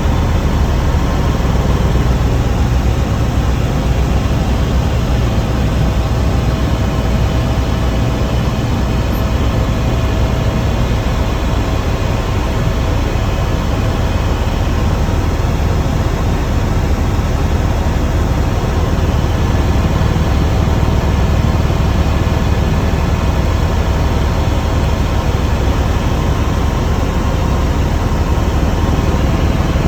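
Helicopter in flight, heard from aboard: loud, steady engine and rotor noise with a constant whine.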